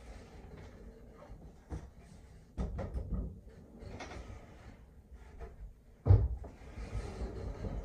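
Solid wood doors being handled: scattered knocks and thumps with noisy stretches between, the heaviest thump about six seconds in.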